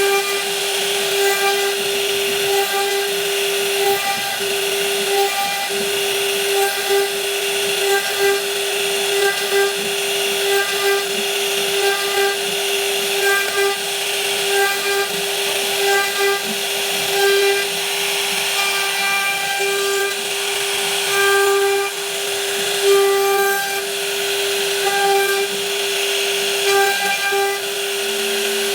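High-speed router spindle cutting wood, a steady high whine with a hiss of cutting and a rhythmic waver as the bit moves through its passes.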